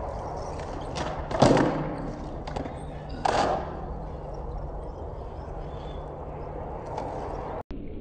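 Skateboard on concrete: wheels rolling steadily, with a loud clack of the board landing about one and a half seconds in and a second board impact about three seconds in.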